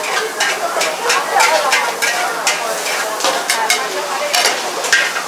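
Char koay teow frying in a wok: a steady sizzle broken by about a dozen irregular sharp clanks and scrapes of a metal ladle against the wok as the rice noodles are stirred.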